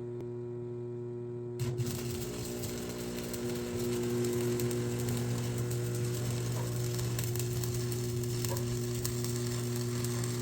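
Electric arc welder striking up about a second and a half in and running one continuous weld bead, a dense steady crackle, over a steady hum.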